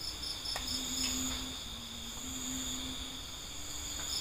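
Insects, crickets or similar, chirping in a steady high-pitched chorus, part of it pulsing about four times a second, with a faint low tone coming and going underneath.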